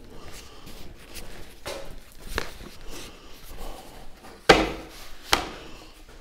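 A row of hardcover books handled and set down onto a Valchromat bookshelf board: light rubbing and small knocks, then a sharp knock about four and a half seconds in and a second, smaller knock under a second later.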